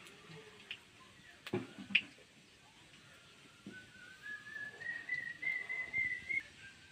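A thin whistling tone that slowly rises in pitch through the second half and holds near the end, after a couple of short knocks.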